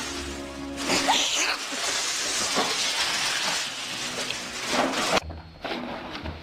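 Loud crackling and rustling of a plastic bag as a cat moves inside it, over background music. The crackling starts about a second in and cuts off abruptly about five seconds in.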